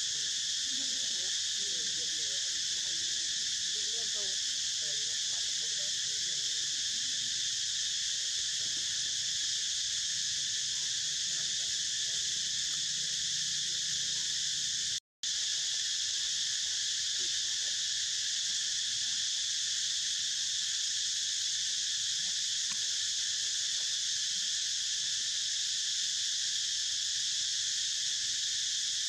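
Steady, high-pitched chorus of insects, a continuous shrill drone in several pitch bands, broken once about halfway through by a split-second gap of silence.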